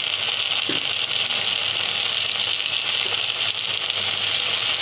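Onion, tomato and capsicum masala sizzling steadily in a hot steel kadhai, with freshly poured soy sauce, and a small tap about a second in.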